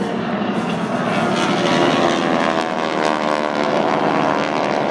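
A formation of Harvard trainers flying past, their radial engines and propellers running together. The pitch glides slowly as they pass, and the sound grows louder over the first two seconds.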